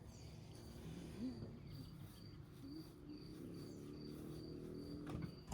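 A cricket chirping faintly and steadily, short high chirps about twice a second.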